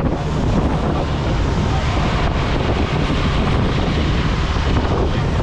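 Motorboat under way at speed: wind buffeting the microphone over the rush of water along the hull and the outboard motor running, steady throughout.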